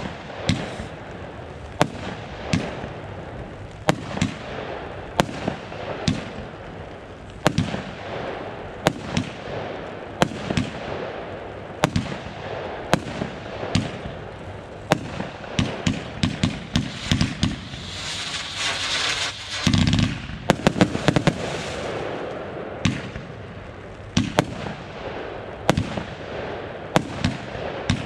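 Consumer fireworks going off: a run of sharp bangs about one a second, quickening about two-thirds through into a dense volley with a crackling hiss and one deep thump, then back to spaced bangs.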